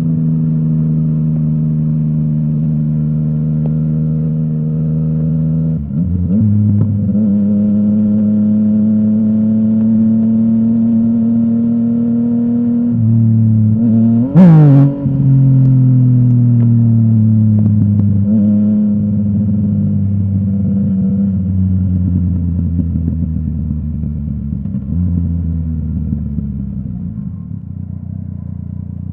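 Yamaha MT-09's inline three-cylinder engine running through a full Akrapovic exhaust, under way. It drones steadily, breaks briefly about six seconds in, and its pitch climbs slowly. About halfway through there is a sharp, very loud burst, after which the pitch falls steadily and the sound fades near the end.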